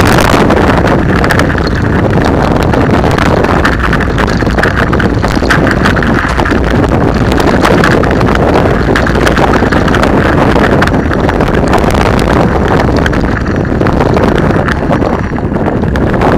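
Loud, steady rush of wind on the microphone of a camera riding a mountain bike down a gravel track, mixed with the crunch and rattle of tyres and bike over loose stones.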